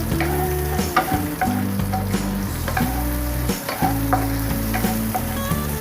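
Shallots sizzling as they are stir-fried in hot oil in a pan, with frequent clicks of the stirring utensil against the pan.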